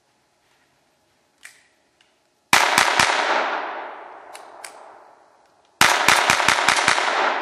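Ruger 22/45 Mark III .22 LR semi-automatic pistol firing: three quick shots, then after a pause a fast string of about seven shots. Each burst is followed by a long echo that fades through the woods.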